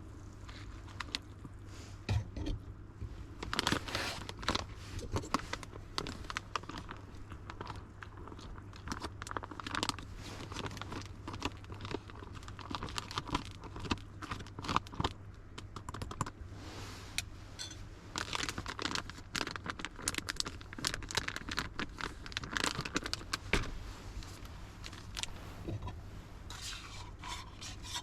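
Irregular rustling, scraping and light clinking of things being handled at close range, over a steady low rumble.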